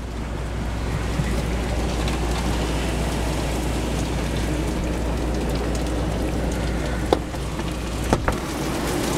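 Hurricane wind and heavy rain outside, a steady rushing noise with a low rumble underneath. A few short sharp knocks come near the end.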